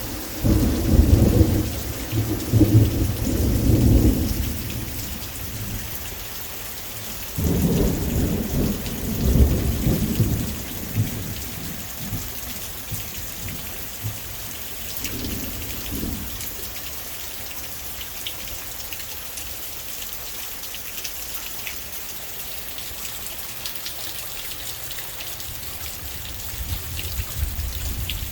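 Thunderstorm: steady heavy rain hissing throughout, with two long rolls of thunder in the first ten seconds and a shorter, fainter rumble about fifteen seconds in.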